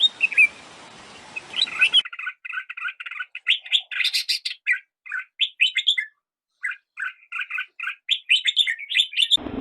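Songbird chirping in rapid runs of short, high notes, with a brief pause just past the middle. For the first two seconds there is a different, hissy recording with a few scattered bird calls.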